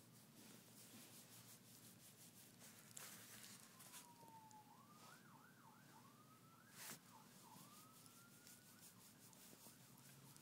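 Faint emergency-vehicle siren: a slowly falling wail about four seconds in, a few seconds of rapid up-and-down yelp warble, then a slow rising wail. It sits over quiet room tone with scattered faint rustles and a click about seven seconds in.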